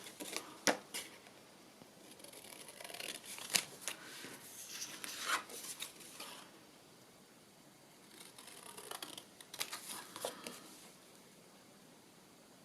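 Scissors cutting paper: a few sharp snips, then two runs of soft, hissy cutting strokes with quiet pauses between.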